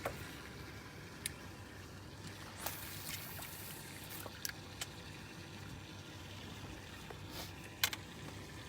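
Water trickling at a steady low level, with scattered light clicks and knocks. There is a brief rustle about three seconds in and one sharper knock near the end.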